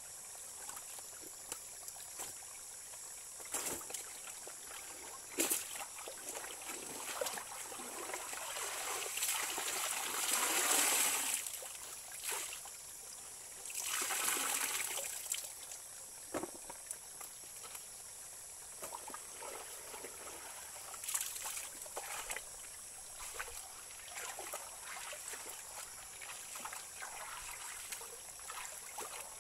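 A shallow stream trickles steadily over stones, with scattered splashes as wet laundry is handled in it. Twice, around ten and fourteen seconds in, there is a louder rush of water pouring and splashing down as a soaked garment is lifted and wrung out over the stream.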